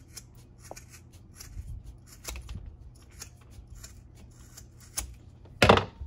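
Scissors snipping again and again through a paracord cobra weave wrapped around a cable: a quick run of short, sharp cuts, with one much louder clack near the end.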